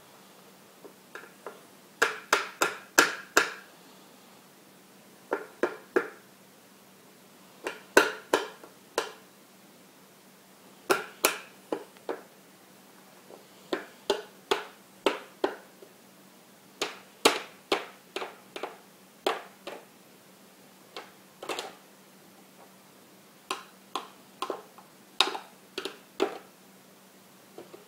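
A plastic baby spoon tapping and banging on a plastic high chair tray and plate, in quick runs of three to six sharp taps with short pauses between them.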